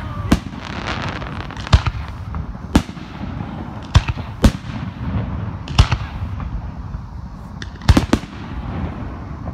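Aerial firework shells bursting, about eight sharp bangs at uneven intervals of roughly one to two seconds, two in quick succession near the end, over a steady low rumble.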